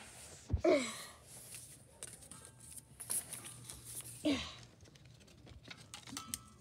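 A thump, then two short falling vocal sounds like sighs, one just after the start and one past the middle, amid quiet handling clicks.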